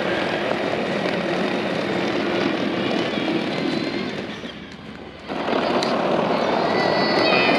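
Ride-on Power Wheels Dune Racer driving on its upgraded electric motors: a steady rumble of plastic wheels on the ground with a faint high motor whine. The sound fades about four and a half seconds in, then comes back abruptly just after five seconds.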